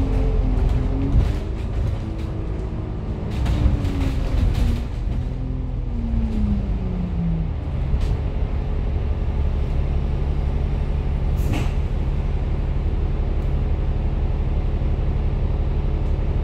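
A city bus in motion heard from inside the cabin: a low running rumble whose drive note falls in pitch over the first several seconds, then holds steady. There are some rattles early on and one brief sharp sound about two-thirds of the way through.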